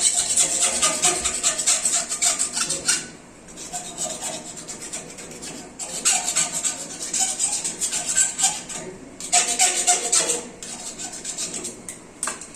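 Rapid rasping strokes rubbing back and forth, in several bouts of about three seconds with short pauses between them.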